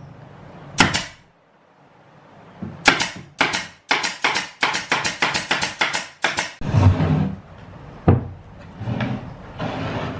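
Pneumatic brad nailer firing into plywood: one shot about a second in, then a quick run of a dozen or more shots at about four a second, and another single shot later. Between them come duller knocks of the plywood panels.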